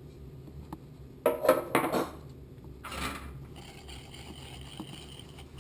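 Sugar poured from a glass into a plastic mixing bowl, landing in a few short rushing bursts. From a little past halfway, a wire whisk starts beating eggs and sugar in the bowl with a fainter, steady scraping.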